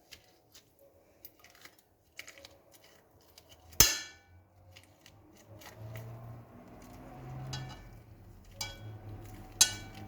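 A spoon scraping lemon pulp and seeds into a small cooking pot: soft scrapes and clicks, with two sharp, briefly ringing knocks of the spoon against the pot, one a little under four seconds in and one near the end.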